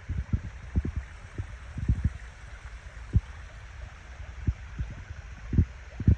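Steady rush of flowing water, with irregular low thumps and rumbles on the microphone throughout.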